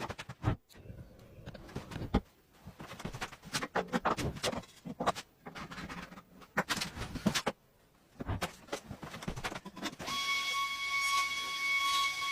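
Hand work on wood: a run of irregular knocks, taps and scrapes, then about ten seconds in a steady high whine with a rushing hiss starts, like a small power tool running.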